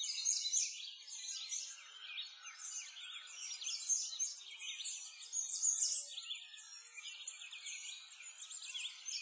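Many small birds chirping and singing at once: a dense, continuous chorus of quick, high chirps.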